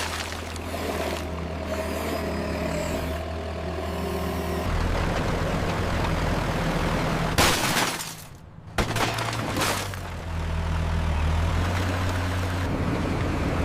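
A steady low engine drone from RC heavy equipment, broken by sharp crashing impacts about seven and a half, nine and ten seconds in, with a brief drop in level just before the second crash.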